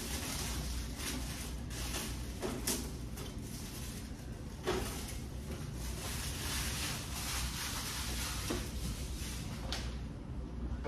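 Thin clear plastic protective bag crinkling and rustling as it is pulled off an RC truck and bunched up in the hands, a dense run of small crackles.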